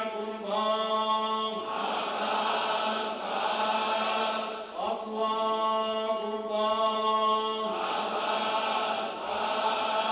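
Men's voices chanting a Shia mourning lament (noha) refrain together on one held pitch, in long drawn-out phrases about three seconds each.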